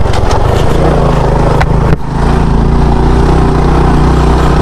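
Small motorcycle engine running steadily under way on a rough off-road track, with a sharp knock about two seconds in.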